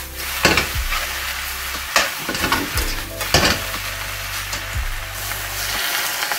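Squid and vegetables sizzling as they are stir-fried in a hot wok over a gas flame. A metal spatula stirs and tosses them, giving a few sharp scrapes against the wok.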